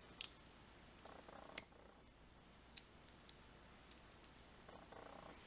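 Small sharp metal clicks of lock pins being handled with tweezers as the lock is taken apart: two louder clicks in the first two seconds, then a few faint ticks.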